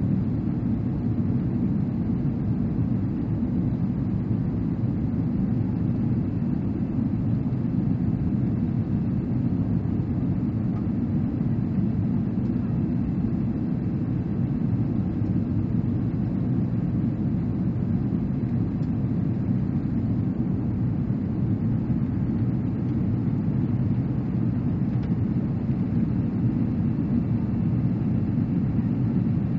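Airbus A330-200 cabin noise in flight: a steady low rumble of the jet engines and rushing air, heard inside the passenger cabin by a window over the wing.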